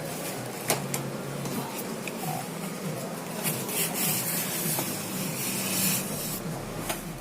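Rustling of packaging being handled while accessories come out of a TV box, with a few sharp clicks about a second in and a longer stretch of rustling in the middle.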